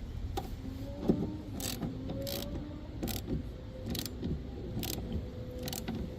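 Metal hand tools clicking and clinking, about seven sharp clicks at irregular intervals, while the half-inch nut is fitted onto a wiper arm spindle. A low steady rumble runs underneath.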